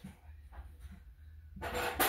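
A short scraping rub about one and a half seconds in, over a faint steady low hum.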